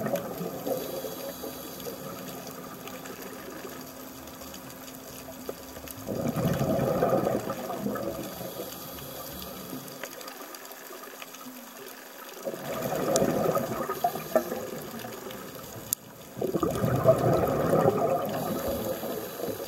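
Scuba diver's exhaled breath bubbling out of the regulator in long bursts, three of them about five seconds apart, with a quieter hiss between breaths.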